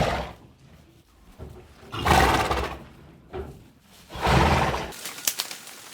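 A large animal giving three deep, rough calls, each under a second long, about two seconds apart. A few faint clicks follow near the end.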